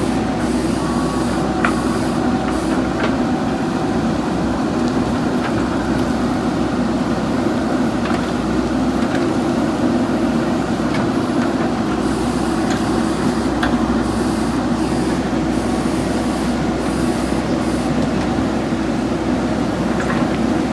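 JCB backhoe loader's diesel engine running steadily while working, with scattered sharp clicks from the machine.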